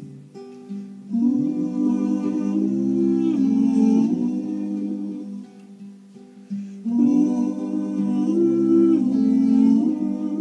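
A small group of men singing in harmony into microphones, with an acoustic guitar accompanying. The singing comes in two long phrases, the second beginning about seven seconds in.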